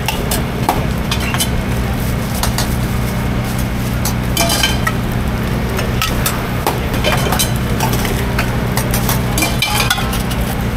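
Metal utensils clicking and clinking irregularly against a stainless-steel cup as sausage is cut into it, over a steady low hum.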